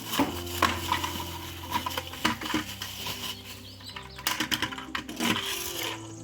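Small hard plastic toy pieces and packaging clicking and tapping as they are handled, in irregular clusters of light clicks, over steady held tones.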